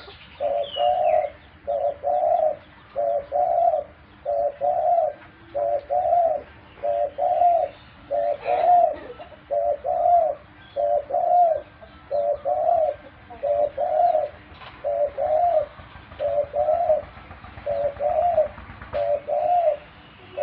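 Pet dove cooing: a long, even series of short, alike coos, about one every 1.2 seconds.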